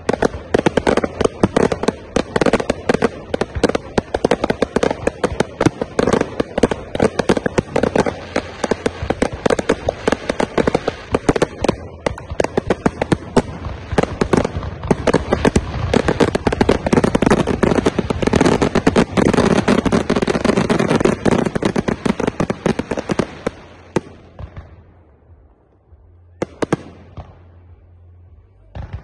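Aerial fireworks display: a dense barrage of rapid bangs and crackling bursts that dies down about four-fifths of the way through, followed by a couple of single bangs.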